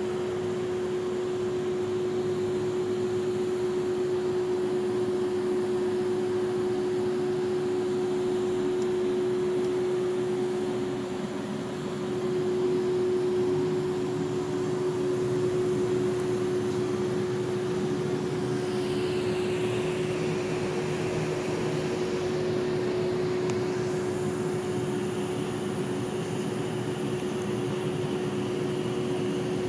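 HAAS TM-1P vertical machining center running idle, a steady mechanical hum with one strong steady tone. A fainter, higher whine comes and goes over the last ten seconds or so.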